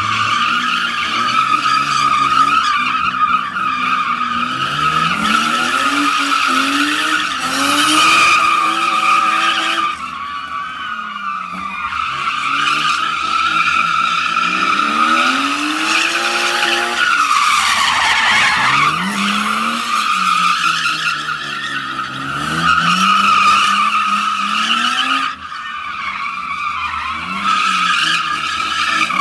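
BMW E36 drifting: tyres squealing steadily as the car slides, over the engine revving up and down again and again.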